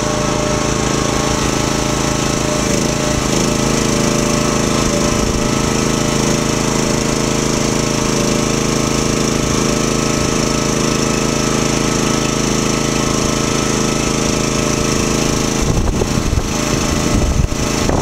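AmeriQuip Eagle 40H towable boom lift's engine and hydraulic power unit running steadily. Its sound fills out about three seconds in, and there is some uneven low knocking near the end.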